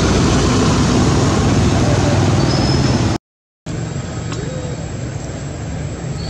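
Loud, steady outdoor rumble and hiss, like wind or traffic. It cuts to total silence for about half a second a little past three seconds in, then gives way to a quieter outdoor background with a faint, steady high whine.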